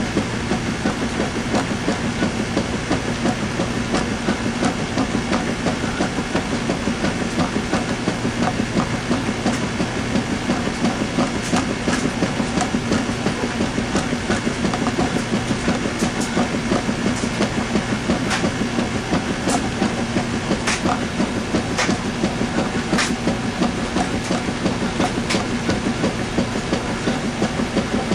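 Washing machine running a load of towels: a steady motor hum under a fast, even rattle, with a few sharp clicks in the second half.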